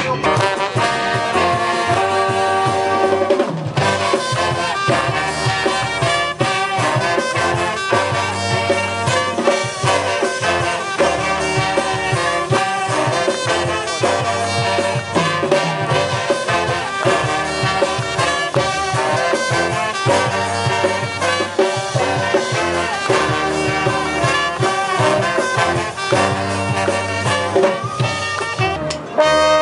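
Live brass band playing a tune with trumpets, trombones, saxophones, sousaphone and drum kit.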